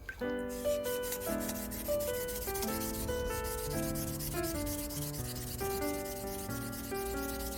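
Steady abrasive rubbing of a rusty adjustable wrench being polished, under background music with held notes that change about every half second.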